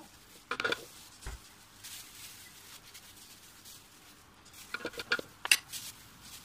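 Scattered clicks and knocks of kitchen handling: mango pieces dropped into a plastic blender jar and a metal spoon scraping mango flesh from its skin on a cutting board. The sharpest click comes about five and a half seconds in.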